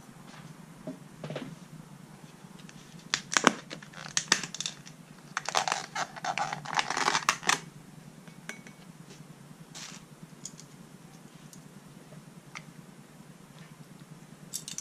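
Clear plastic lid being pried off a takeaway soup bowl. It gives a few sharp plastic snaps about three seconds in, then a couple of seconds of crinkling and crackling as it comes free, and a few light clicks after that.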